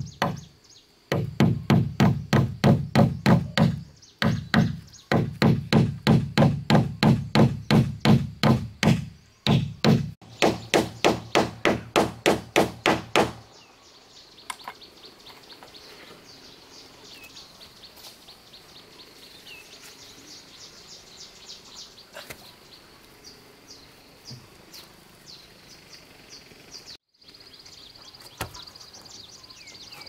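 Hammer driving nails into the planks of a wooden boat hull: rapid, even blows about three to four a second, each with a deep hollow thud from the hull, in runs broken by short pauses. After about 13 seconds the hammering stops, leaving a faint outdoor background with a steady high chirr.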